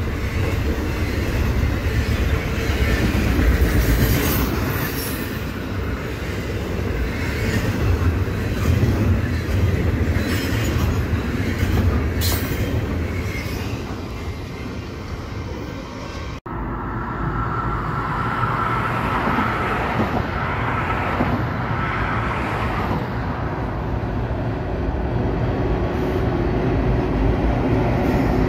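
Double-stack intermodal freight cars rolling past at close range, their steel wheels rumbling and clattering on the rails. About sixteen seconds in it cuts suddenly to the steadier, more distant sound of Norfolk Southern diesel locomotives hauling a train.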